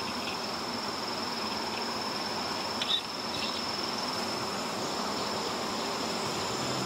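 Steady high-pitched chorus of summer insects over a soft background hiss, with a single brief click about three seconds in.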